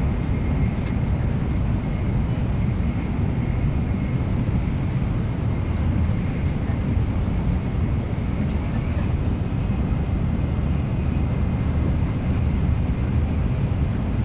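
Steady low rumble and hiss of a Nozomi Shinkansen bullet train running at speed, heard inside the passenger cabin, with a faint steady high whine over it.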